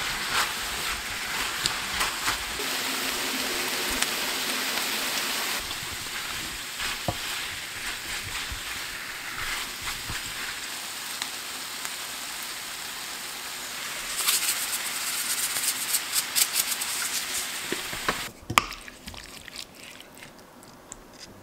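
Shrimp, round zucchini and onion sizzling in butter in a stainless steel frying pan while a spatula stirs them, scraping and clicking against the pan, with the clicks coming thicker near the end. The sizzle drops away suddenly with a sharp knock near the end.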